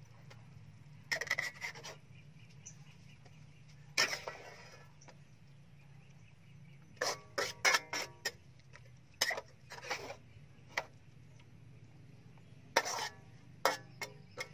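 Metal ladle scraping and knocking against a steel wok while stirring pork and noodles, in short bursts of scraping with several ringing metal clanks, most closely packed about seven to eight seconds in. A low steady hum runs underneath.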